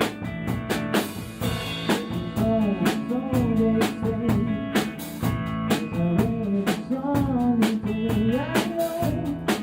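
A rock song playing, with a steady drum-kit beat and guitar; a voice starts singing the melody about two seconds in.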